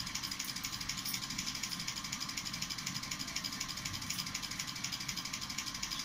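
Steady, fast, even mechanical ticking, about six to eight ticks a second, in the background.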